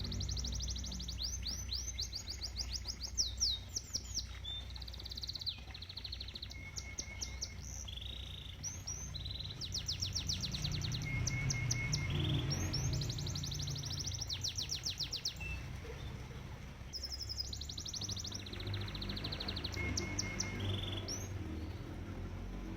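Domestic canary singing a long, continuous song: phrases of very fast trills and rapid sweeping notes follow one after another, with short runs of lower repeated notes in between. Beneath the song is a steady low rumble of koi pond water.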